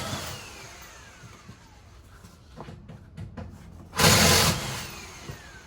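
Two short bursts of a power impact wrench, one at the start and one about four seconds in, each followed by a falling whine as it winds down, typical of loosening wheel lug nuts.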